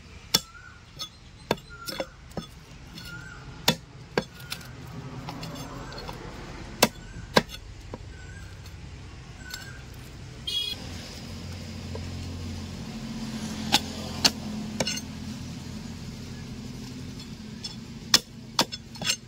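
Knife chopping a catla fish into pieces: sharp knocks and clinks of the blade at irregular intervals. A low steady hum comes in about halfway.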